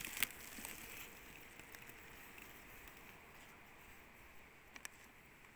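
Plastic bubble-wrap crackling and clicking as it is peeled back off the top bars of a beehive, mostly in the first moment, then a faint steady hiss with a couple of small clicks near the end.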